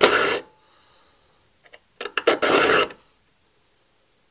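Saw file rasping across the teeth of a handsaw in two smooth strokes about two seconds apart, filing alternate teeth to re-shape the saw from rip to crosscut.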